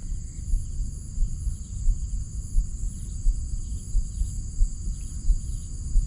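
Steady high-pitched chorus of crickets, over a low rumble with irregular soft thumps.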